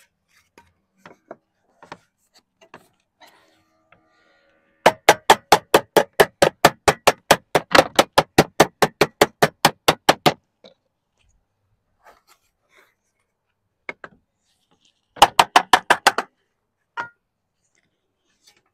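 Lead sheet flashing being dressed with a hand-held lead dresser, backed by a timber batten: a fast run of sharp strikes, about five a second, for some five seconds starting about five seconds in, then a shorter burst of about eight strikes near the end, with a few single knocks between.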